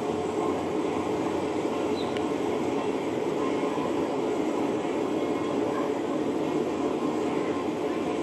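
Heavy road-construction machinery running with a steady, even diesel engine and mechanical noise that holds without pause.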